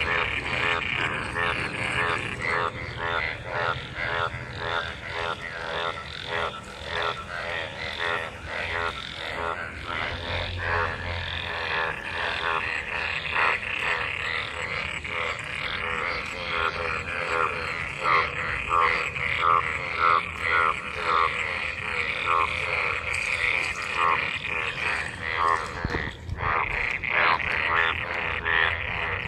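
A chorus of many frogs calling at once in the rain-filled water: rapid overlapping croaks, several a second, over a steady high-pitched drone, growing louder in the second half. It is a breeding chorus of mating frogs.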